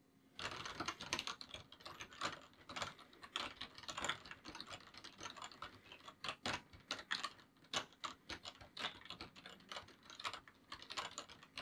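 Rapid, irregular typing on a computer keyboard, the keys clicking several times a second, starting about half a second in.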